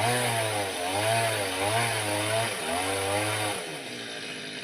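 Two-stroke chainsaw running under load, its engine note rising and falling repeatedly as it cuts. It drops away to a lower, quieter sound about three and a half seconds in.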